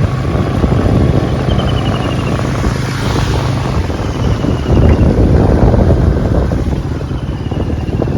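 A vehicle's engine running on the move, with wind buffeting the microphone; the low engine hum shifts about halfway through.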